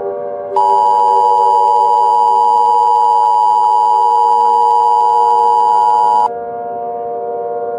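Emergency Alert System attention signal: the steady two-tone alarm (853 and 960 Hz sounded together), starting about half a second in and cutting off suddenly after about six seconds, over a steady low hum.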